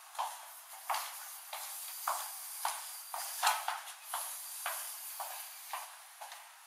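Footsteps going down a staircase, about two steps a second, thin and tinny with a steady hiss behind them.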